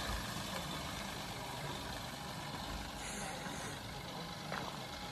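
Mahindra Bolero Neo's 1.5-litre three-cylinder diesel engine running as the SUV drives away up the road, slowly fading.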